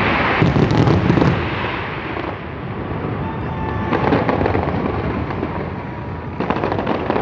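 Fireworks going off in rapid succession, a continuous run of bangs and rumble, with bursts of sharp crackling about half a second in, again around four seconds, and near the end.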